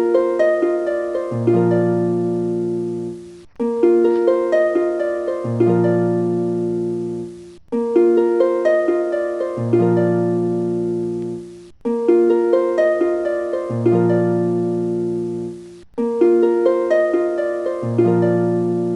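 Background music: a short phrase of plucked notes over a low bass note, repeating in a loop about every four seconds.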